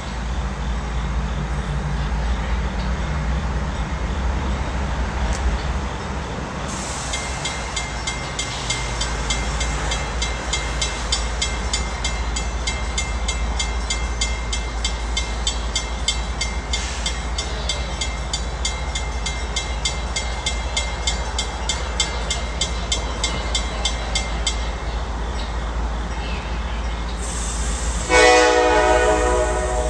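CSX diesel locomotive running with a steady low engine rumble while a warning bell rings rapidly and evenly for most of the stretch. Near the end the locomotive's air horn sounds, a loud chord.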